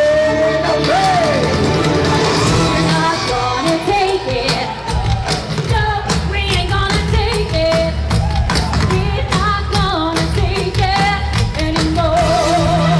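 A rock-style pop song with a singer over a band, with regular drum hits and a steady bass line.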